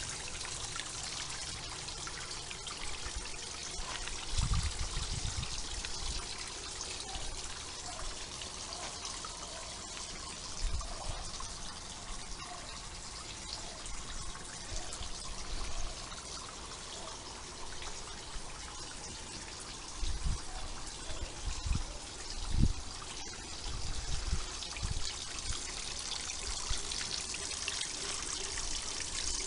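Filtered water from a raised filter pouring back into the fish water below as a small mock waterfall, a steady splashing trickle. A few soft low thumps come and go in the middle and later part.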